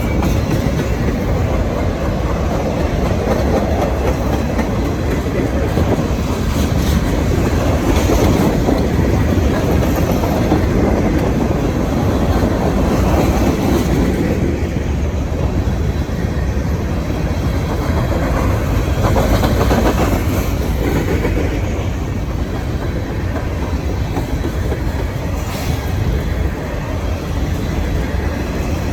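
Cars of a long freight train rolling steadily past, with wheels clacking over the rail joints.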